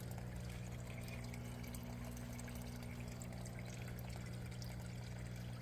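Water flowing and trickling steadily in a backyard aquaponics system, with a low steady hum underneath.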